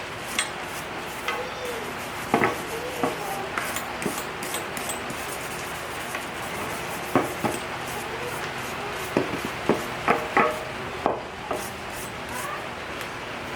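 Steady rubbing and scraping on a steel motorcycle exhaust pipe while stripping rust and old paint, with scattered metal clinks and knocks.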